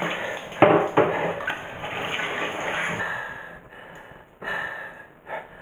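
Warm tap water running over hands into a bathroom basin. There are two louder splashes about half a second and a second in, and the flow gets quieter after about three seconds.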